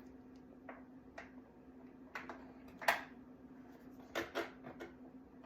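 Scattered light clicks and knocks, as of small objects being handled, with the loudest about three seconds in, over a faint steady hum.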